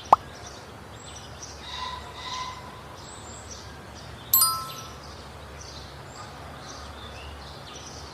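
A bright chime sound effect rings once about four seconds in and fades within a second, over a faint outdoor-like background with soft high chirps. A short click sounds right at the start.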